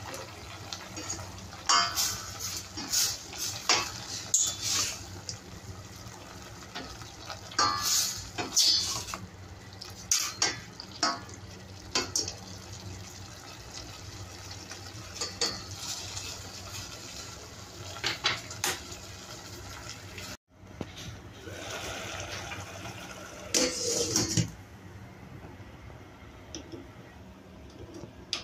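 Ladle knocking and scraping against a stainless steel pot of boiling macaroni soup as it is stirred, in irregular clusters of clanks over a steady background hiss.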